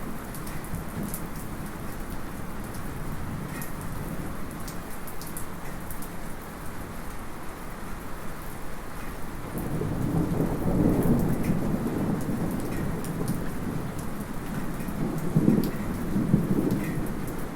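Light rain falling steadily, with thunder that is not too close rumbling low and swelling about ten seconds in and again near the end. Scattered small drips, a small metallic drip among them, tick over the rain.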